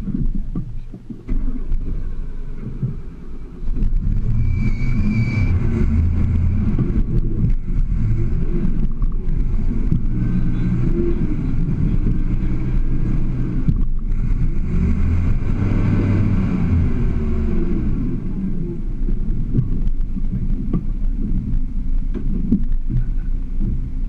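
Toyota FJ40 Land Cruiser's engine working hard as the truck crawls up a rock ledge. Its rumble grows louder a few seconds in, and the revs rise and fall in waves as the throttle is worked.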